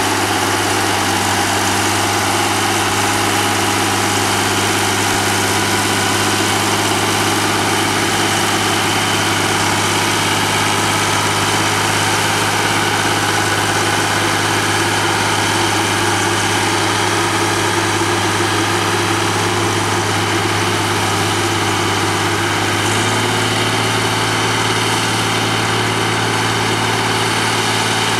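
Diesel engine of a 120 hp SJH tractor running steadily while it pulls a moldboard plough through the soil. Its pitch steps up slightly about 23 seconds in.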